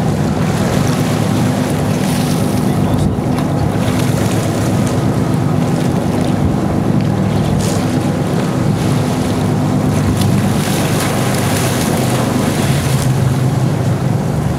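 Sport-fishing boat's inboard engines running steadily at low speed, with water washing and churning along the hull and wind buffeting the microphone.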